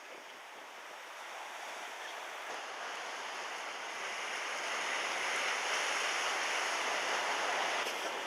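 Steady rushing of wind and sea water, growing gradually louder, with no engine tone standing out.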